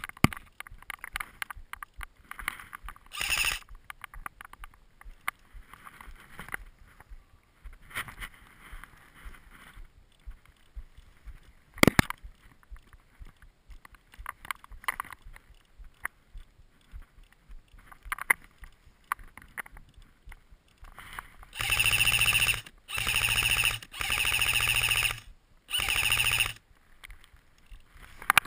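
Airsoft electric rifle firing four full-auto bursts of about a second each near the end, a rapid mechanical buzz. Before that, quiet rustling and handling clicks, with one sharp click about midway.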